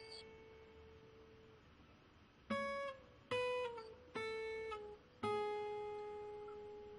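Quiet background music on guitar: a held note fades out, then four plucked notes follow about a second apart, each a little lower than the one before. The last note is left ringing.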